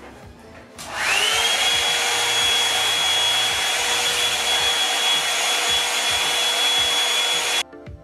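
Revlon One-Step hair dryer brush starting up about a second in, its motor whine rising as it spins up, then running steadily with a loud rush of air until it cuts off suddenly near the end.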